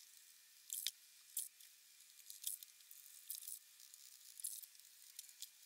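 Plastic razor-blade scraper scraping softened head gasket residue off the wet aluminium deck of a BMW M54 cylinder head: faint, irregular scratchy strokes.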